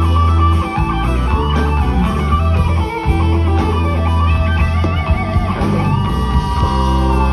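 Electric guitar solo played live with a band, the lead line full of bent and wavering notes, one held long near the end, over a steady bass line.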